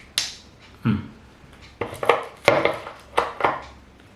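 Small plastic camera mounting parts handled and fitted together: a string of sharp clicks and knocks, about seven, irregularly spaced.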